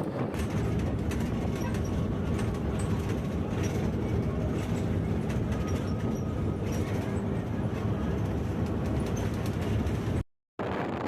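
Steady vehicle road noise with wind rushing over the microphone while travelling. The sound drops out for a moment near the end.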